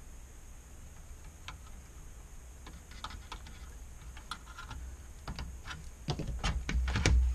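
Light clicks and taps of a screwdriver and fingers working on a monitor's metal chassis and power board. The clicks come more often and louder near the end, with heavier knocks of handling.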